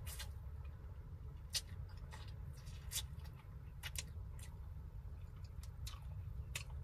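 Close-up eating sounds from a seafood-boil mukbang: a few scattered sharp mouth smacks and clicks from chewing and handling shrimp, over a low steady rumble.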